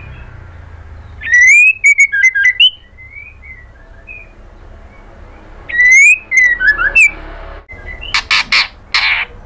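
Female white-rumped shama calling. A loud burst of rising whistles and quick notes comes about a second and a half in, another about six seconds in, then a run of harsh rasping notes near the end.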